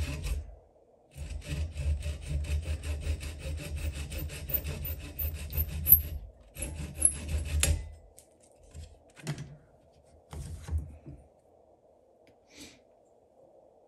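Hand saw cutting through a small block of wood in quick back-and-forth strokes, with a short pause about half a second in. The sawing stops about eight seconds in, followed by a few faint knocks.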